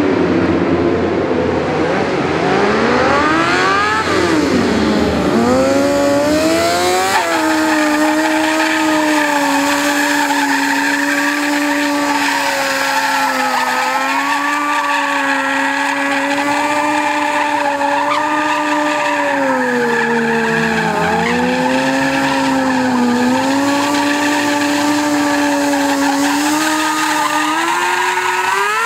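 Sport motorcycle engine revving up and down, then held at high revs with two brief dips, its rear tyre spinning on asphalt in a burnout with tyre squeal.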